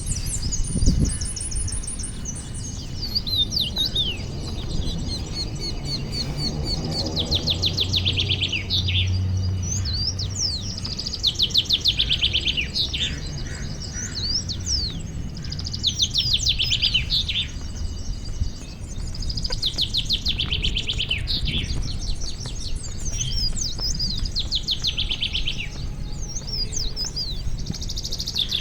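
Several songbirds singing and chirping: repeated bursts of rapid high trills, each about a second or two long, mixed with sharp rising and falling calls. A low rumble sits underneath for a few seconds about a quarter of the way in.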